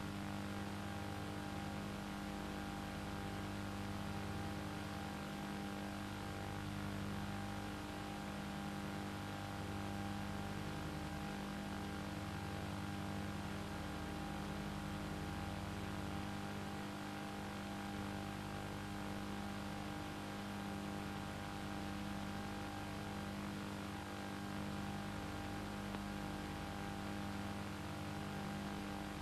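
A steady electrical hum over hiss, with several constant tones held throughout and a slow waver in the lowest part.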